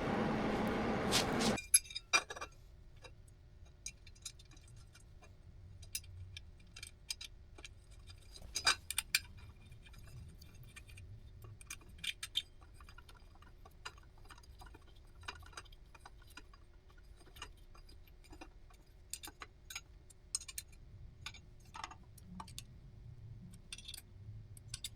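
A steady welding hiss that cuts off about a second and a half in. Then scattered light metallic clicks and clinks of tools and small steel parts being handled.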